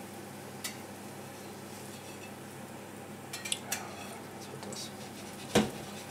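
Metal spatula clinking and scraping against a stainless steel frying pan as a frying patty is turned: a single tick, a quick cluster of clicks about halfway, and one louder knock near the end, over a faint steady hiss of frying oil.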